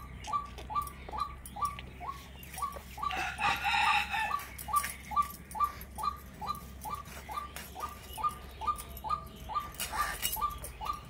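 Chickens: a short falling call repeated about three times a second, with a rooster crowing for about a second and a half, some three seconds in.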